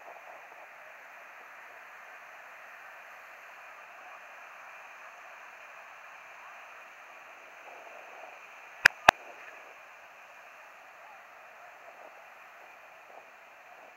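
Steady wash of small freshwater lake waves breaking on a sand beach. About nine seconds in, two sharp clicks a quarter-second apart stand out as the loudest sound.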